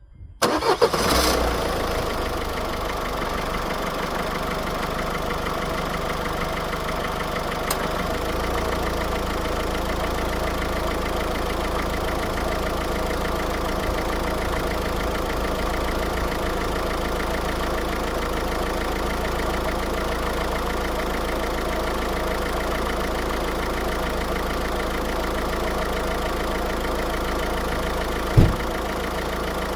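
Car engine started and then idling steadily, loudest for the first second or so as it catches. The low hum shifts slightly about eight seconds in, and there is one short thump near the end.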